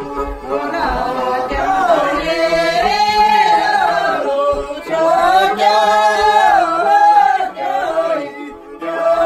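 A group of men and women singing a Tibetan Dingri gorshey (circle-dance song) together, in long phrases with held, gliding notes. There is a short break about halfway through and another near the end.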